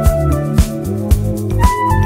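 Background music with a steady beat, about two beats a second, under sustained melodic notes.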